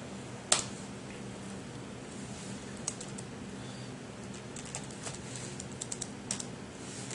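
Computer keyboard being typed on: scattered light key clicks in short runs, with one louder single keystroke about half a second in.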